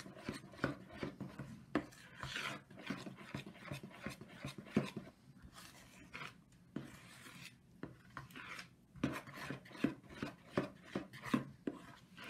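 A spoon stirring flour and water into a soft, sticky dough in a plastic bowl, scraping against the bowl in irregular strokes.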